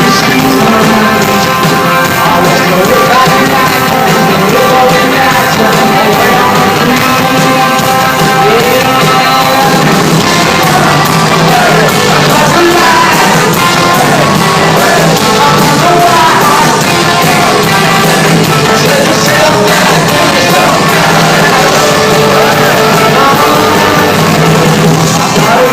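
A rock band playing live, with a singer, guitars and drums, loud and unbroken.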